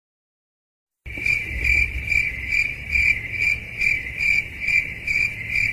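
Cricket chirping sound effect, the stock 'awkward silence' cue: a steady run of short, high chirps, about two a second, over a low night-time rumble, starting after a second of silence.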